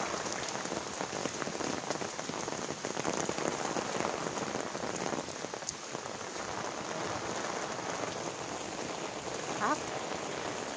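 Heavy rain falling steadily on pavement and puddles, with footsteps splashing through shallow water and a brief squeak near the end.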